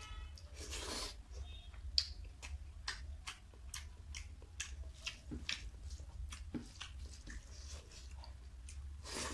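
Close-miked chewing of a mouthful of rice and fish curry, with many short wet mouth clicks and lip smacks, over a steady low hum.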